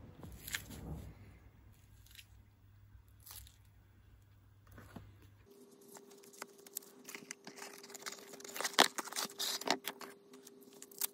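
Gloved hands handling a Cold Steel Magnum Tanto IX knife and its leather sheath, sliding the blade into the sheath. The sound is soft scrapes, rustles and clicks, scattered and quiet, with the loudest clicks about two-thirds of the way in.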